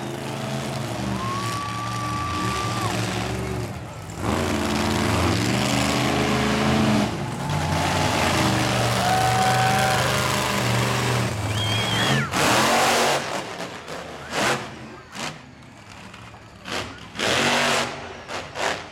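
Monster truck engines revving hard: a heavy engine drone that rises and falls through the first part, including a truck spinning donuts. Near the end it gives way to short separate bursts of revving.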